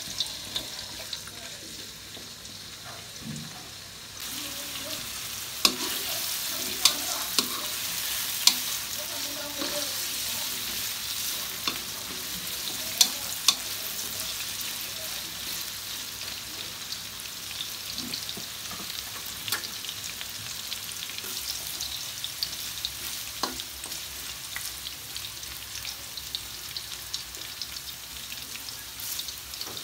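Diced carrots sizzling in hot oil in a wok as a metal spatula turns them, with sharp clinks and scrapes of the spatula against the pan now and then. The sizzle gets louder about four seconds in.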